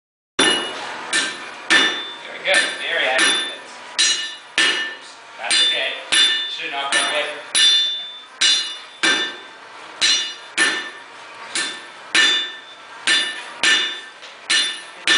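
Hand hammer striking hot steel on an anvil at a steady pace of about two blows a second. Each blow leaves a bright metallic ring. The hammering starts suddenly about half a second in.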